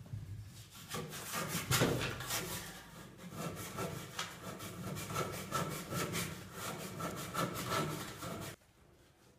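Hand saw cutting through an autoclaved aerated concrete (sibit) block with quick back-and-forth strokes, which stop abruptly about eight and a half seconds in.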